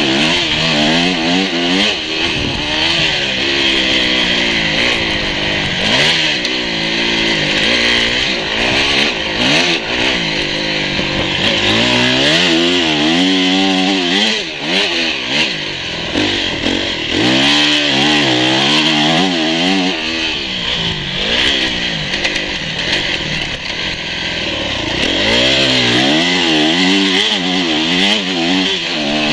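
Dirt bike engine revving up and falling back over and over as it is ridden, pitch climbing and dropping with each throttle change and shift, with steady wind rush on the onboard microphone.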